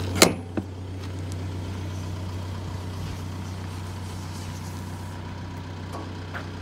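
A sharp metallic clunk from the box truck's rear cargo door latch about a quarter second in, then a smaller knock just after. Under both, an Isuzu Elf truck engine idles with a steady low hum.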